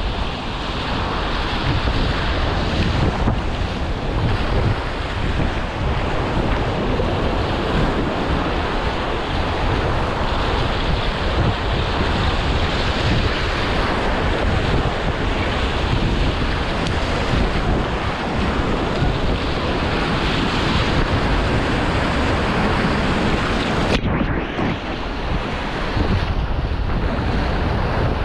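Whitewater rapids at high flow (about 1600 cfs) in a muddy, flooded river, rushing loudly and steadily right around a packraft. About 24 seconds in, the sound turns muffled for a moment, then comes back.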